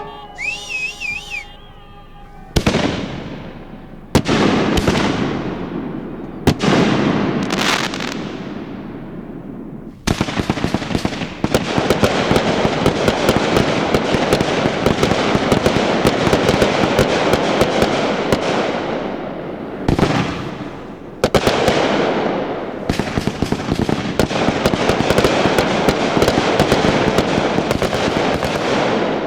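Aerial fireworks going off. Several separate booms, each with a fading crackle, come in the first ten seconds. Then a dense, unbroken run of crackling and popping follows from many shells at once.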